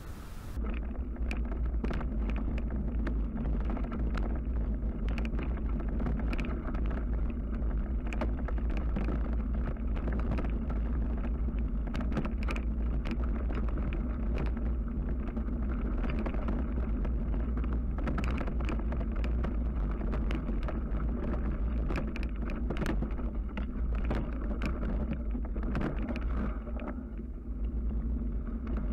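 Bicycle riding over a rough dirt and gravel track, heard as a steady low rumble of wind buffeting the bike-mounted camera's microphone, with frequent clicks and rattles from the bike over the bumpy surface. The sound cuts in abruptly about half a second in.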